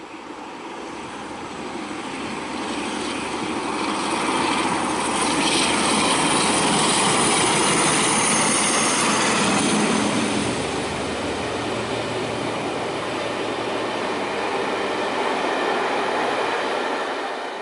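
A Class 47 diesel locomotive hauling passenger coaches passes by. Its engine and train noise build as it approaches and are loudest as the locomotive goes by. The coaches' wheels then keep running steadily on the rails, fading out at the very end.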